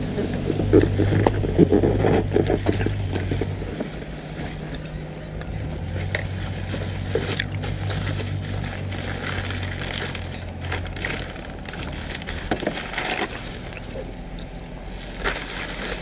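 Low steady motor hum that drops away about four seconds in and comes back, under scattered rustling of plastic packaging and light clinks of metal parts being handled.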